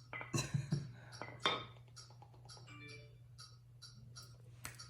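Indian ringneck parrot giving a short burst of voice-like chatter in the first second and a half, followed by a run of light clicks, about three a second.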